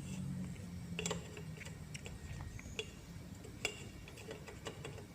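About five sparse, sharp clicks, like the horn and turn-signal switches on a Honda CB150R's handlebar being pressed, with neither the horn nor the indicators sounding in response. A faint low hum fades out during the first second or so.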